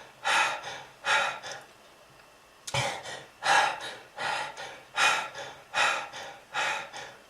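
A smoker's coughing fit: harsh, rapid coughs with gasping breaths, about one burst a second, breaking off briefly about two seconds in.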